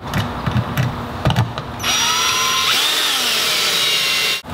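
Cordless drill driving a screw into a metal outlet cover plate: a few knocks and clicks, then the motor runs for about two and a half seconds with a whine that shifts in pitch under load, cutting off suddenly near the end.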